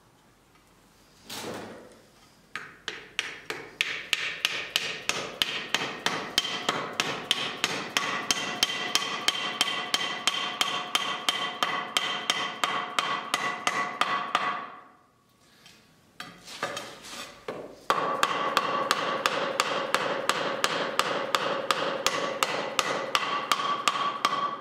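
Hand hammer striking the top of a wooden axe handle in quick, even blows, about four a second, to fit a forged bearded axe head onto the handle, with a ringing tone under the blows. The hammering stops briefly past the middle, then starts again.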